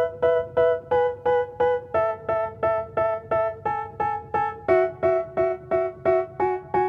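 Background music: a keyboard plays one repeated chord about three times a second, the chord changing twice.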